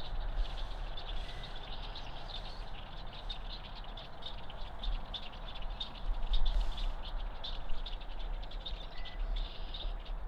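Marsh ambience: a continuous chorus of small, high chirps, with a low rumble underneath.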